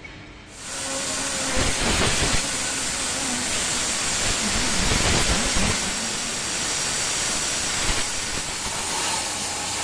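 Compressed-air blow gun hissing as it blows air into the side of a Yanmar engine block. It starts about half a second in and holds steady, with a rough low rumble where the blast hits the casting.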